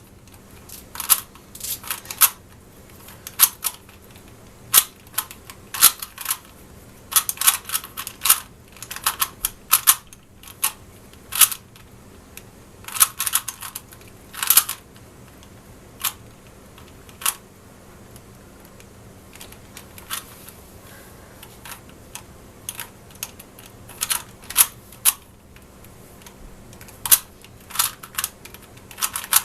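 A Rubik's cube being turned quickly by hand in a timed solve: its plastic layers give sharp clicks and clacks in irregular flurries, with short pauses between them and a sparser spell of a few seconds past the middle.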